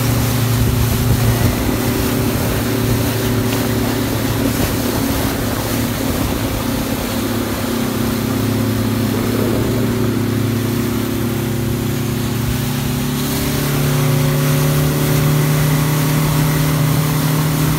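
A 50-horsepower outboard motor runs steadily at speed, over the rush of water and wind against the boat. The engine's pitch rises slightly about three-quarters of the way through.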